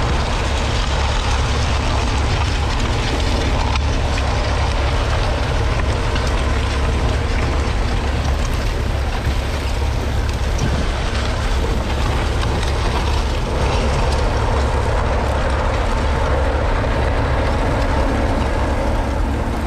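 1943 Fordson Model N's 4.4-litre four-cylinder petrol/TVO engine running steadily under load as it pulls a two-furrow trailed plough through the soil.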